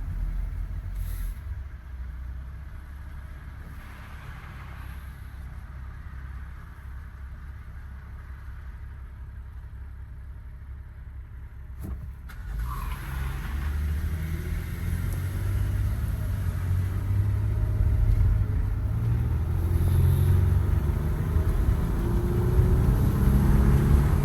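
Cabin sound of a 2012 Toyota Sienna minivan driving. A low, quieter rumble for about the first half, a single click near the middle, then the engine note rises and road noise builds as the van accelerates.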